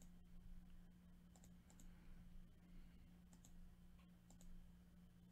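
Several faint computer mouse clicks, some in quick pairs, repeatedly clicking the button that re-shuffles a list, over a low steady electrical hum.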